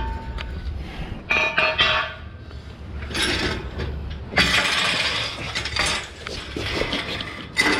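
Intermittent clinking and clattering of hard objects being handled, in a few separate bursts.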